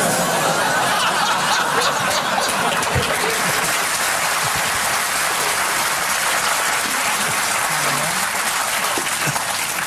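Studio audience laughing and applauding: a steady wash of clapping and laughter that eases off slightly near the end.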